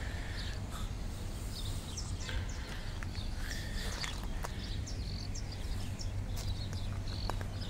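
Birds chirping in many short, scattered calls over a steady low background rumble.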